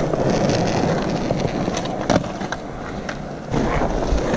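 Skateboard wheels rolling on rough concrete, with one sharp clack a little over two seconds in. The rolling fades briefly and starts again about three and a half seconds in.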